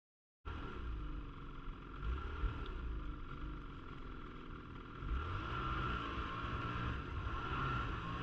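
Snowmobile engine running while the sled rides along a snowy trail, with a steady high whine over the engine's rumble; it gets somewhat louder about five seconds in.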